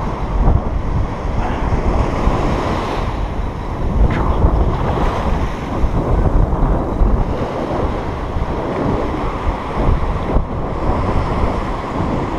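Surf breaking and washing up a sandy beach, with strong wind buffeting the microphone in a steady low rumble.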